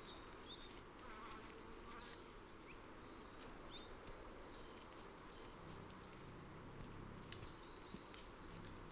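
Faint outdoor ambience of high, thin whistled bird calls: many short notes, some sliding up and some down, over a low background hiss.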